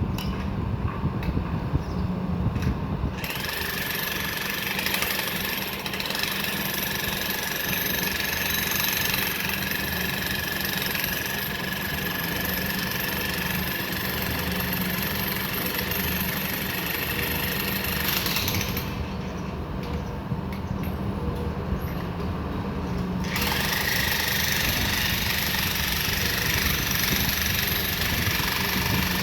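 Excavator's diesel engine and hydraulics running steadily while it works. A high hydraulic whine comes in a few seconds in, drops out for a few seconds past the middle and returns, over rapid knocking in the first few seconds.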